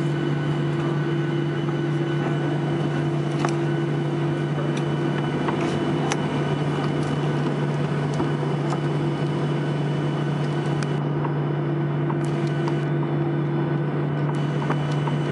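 Inside the cabin of a Boeing 737-800 taxiing after landing: its CFM56-7B jet engines running at idle, a steady low drone and hiss, with a few faint clicks.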